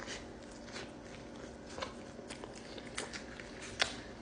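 Close-up chewing and mouth sounds of a person eating a bacon cheeseburger: a run of short wet smacks and clicks, the sharpest near the end.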